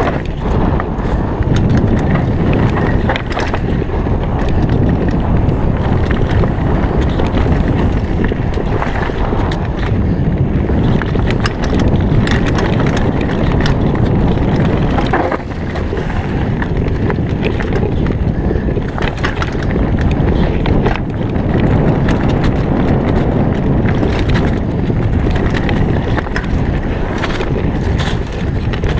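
Santa Cruz V10 downhill mountain bike riding fast down a rough dirt trail. Tyres roll over dirt and dry leaves while the chain and frame rattle and knock over bumps. Heavy wind rumble lies on the action camera's microphone throughout.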